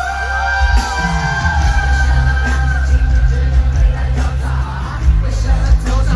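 Live pop concert sound from inside the arena: a singing voice, then a heavy bass beat that comes in about half a second in, with the audience yelling and cheering over the music.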